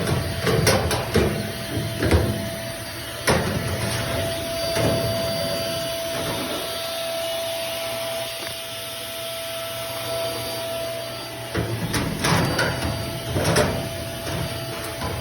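Clothes dryer running with a steady hum and a thin whine, with knocks and rattles in the first few seconds and again near the end.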